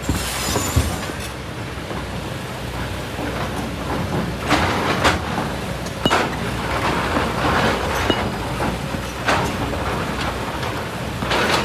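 Kobelco SK200 excavator running steadily under load, with irregular clanks and rattles as its bucket digs rock and sand.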